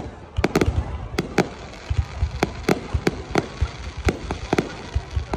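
Aerial fireworks display: shells and rising comets bursting in an irregular rapid series of sharp bangs, about three a second, over lower booms.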